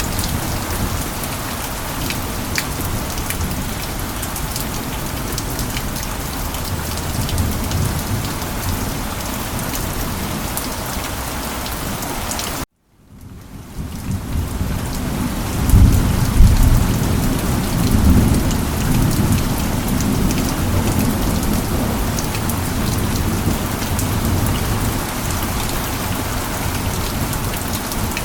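Steady rain falling, cut off abruptly to silence for a moment about halfway through, then fading back in; a few seconds later a low rumble of thunder rolls under the rain.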